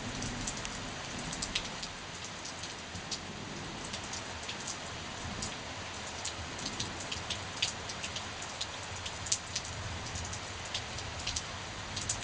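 Steady heavy rain falling, an even wash of noise with many sharp taps of single drops landing close by, scattered irregularly throughout.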